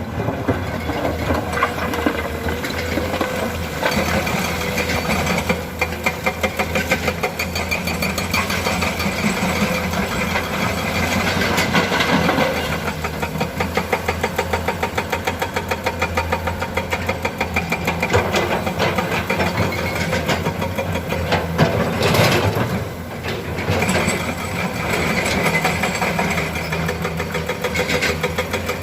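Komatsu PC200 hydraulic excavator's diesel engine running, its note rising and falling with the load of digging and loading broken stone, with a few short, louder clatters along the way.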